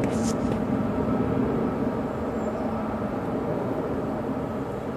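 Steady low rumble of an Airbus A300-600ST Beluga's twin turbofan engines on approach to land. A brief scratch of camera handling comes right at the start.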